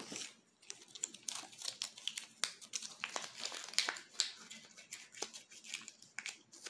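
Irregular crinkling and crackling rustles from a crinkly fabric cat tunnel, with a cat moving about inside it.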